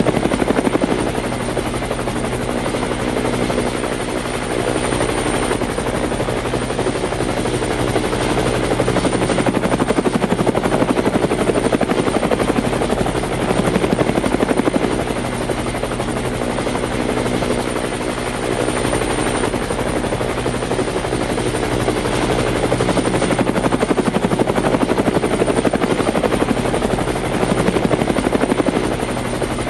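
Helicopter running steadily: a continuous mechanical hum with several steady tones, its loudness swelling and easing every few seconds.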